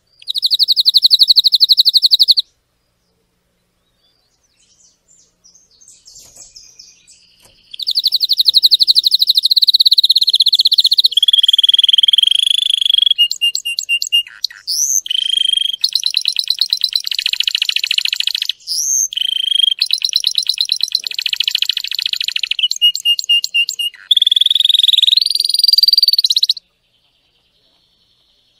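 Domestic canary singing in fast trills and rolls: a short trill, a pause of about five seconds, then a long run of trilled phrases that stops shortly before the end.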